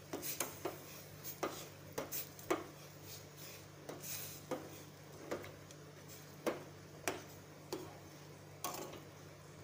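A spoon stirring milk thick with crushed makhana and dry fruits in a stainless steel saucepan, knocking against the pan's sides in irregular taps about one or two a second. The taps stop near the end.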